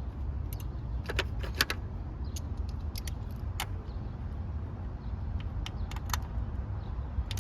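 Car engine idling, a steady low rumble, with scattered light metallic clicks and taps over it.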